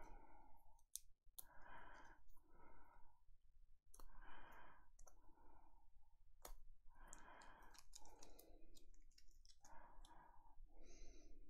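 Faint, repeated rustling and scraping of a thick patch trading card being pushed into a tight plastic card sleeve, with scattered light clicks of the card and plastic.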